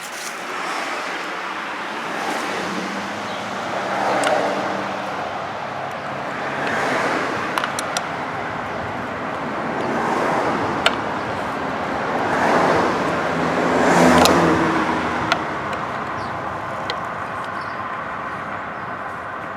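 Street traffic passing: cars and buses swell and fade one after another, the loudest pass near the middle and again about two-thirds through. A few sharp clicks sound over it.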